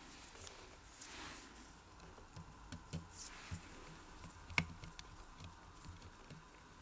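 Small watchmaker's tools clicking and tapping on a Seiko 5M42A Kinetic movement and its case as the movement is taken out. The clicks are soft and irregular, with one sharper click about four and a half seconds in and a couple of brief rustles.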